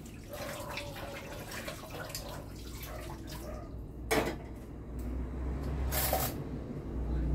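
Water splashing in a kitchen sink as something is rinsed under the tap, with a sharp clack about four seconds in and a short rattle near six seconds.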